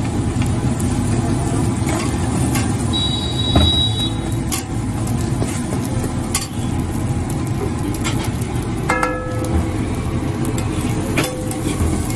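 Pav bread rolls frying in oily masala on a large flat iron tawa: sizzling, with scrapes and taps of a metal spatula, over a steady low rumble.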